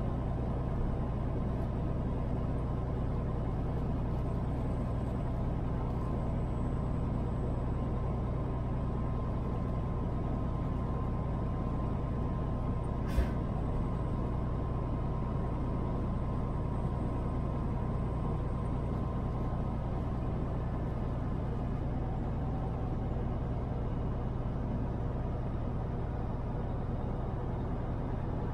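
Semi truck driving at a steady speed: a constant low engine drone under road noise. A single short sharp click comes about halfway through.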